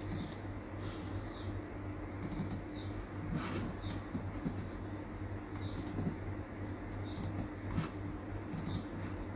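Sparse clicking at a laptop, a click or a quick pair of clicks every second or so, over a steady low electrical hum.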